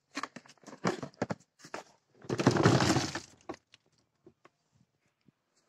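Oranges tipped from a plastic bucket into a plastic crate. A few separate knocks of fruit and bucket, then, about two seconds in, a dense rattle of oranges tumbling into the crate for about a second, then a few scattered knocks.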